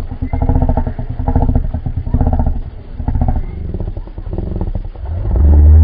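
Deep, rough growling rumble offered as a reconstructed call of the extinct giant crocodilian Purussaurus, made of rapid rattling pulses that swell louder about five seconds in.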